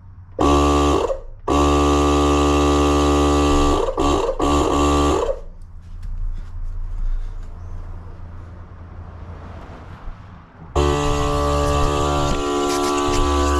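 Milwaukee cordless compressor running in bursts while inflating a newly mounted motorcycle tire: a short burst, a run of about four seconds with two brief stutters, a pause of about five seconds, then it runs again steadily near the end.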